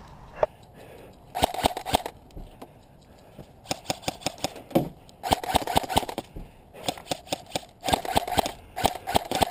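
Airsoft electric rifle fire in short bursts of rapid clicking shots, several bursts one after another, starting about a second and a half in.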